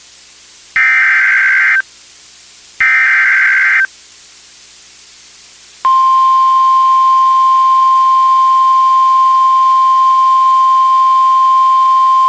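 Two of the three SAME digital header bursts of a NOAA Weather Radio Emergency Alert System activation, each a harsh burst of data tones about a second long, two seconds apart. After about two seconds of gap, the steady 1050 Hz warning alarm tone starts and holds, signalling that a warning is about to be broadcast.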